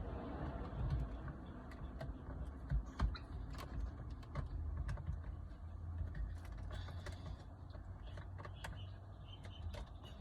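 Scattered light clicks and creaks of plastic and rubber as a mirror dash cam is handled and fitted with its rubber mounting straps, over a low steady rumble.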